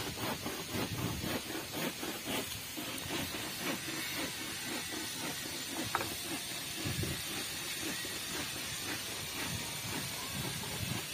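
Wind on the phone's microphone: a steady hiss with irregular low buffeting.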